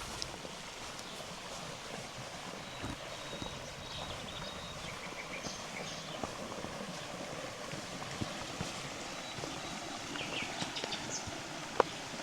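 Small birds chirping now and then over a steady background hiss of flowing river water, with a few occasional footfalls on a path.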